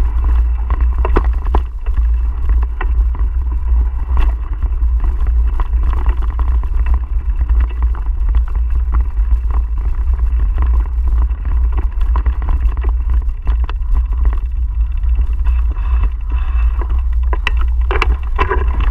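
Mountain bike ridden over a bumpy dirt trail, heard through the riding camera's microphone: a heavy low rumble of wind and vibration, with frequent knocks and rattles from the bike over bumps.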